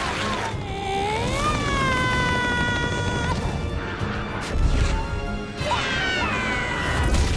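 Cartoon fight-scene soundtrack: action music with crashes and heavy impacts, about four and a half seconds in and again near the end, and high-pitched cartoon yells with pitch glides.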